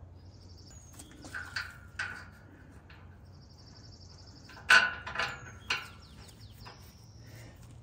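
Sharp metallic clicks and clinks as bolts and hardware are handled and pushed into the steel ladder mount, the loudest a little under five seconds in. A bird chirps in short high trills twice in the background.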